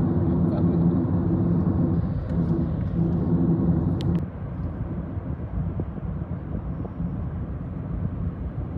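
Road noise inside a moving car's cabin: a steady hum of engine and tyres with a low drone. About four seconds in it drops to a quieter, even tyre rumble.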